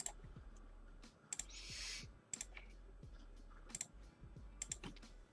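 Scattered sharp clicks of someone working a computer keyboard and mouse, a few single clicks and two quick pairs. A short soft hiss comes about a second and a half in.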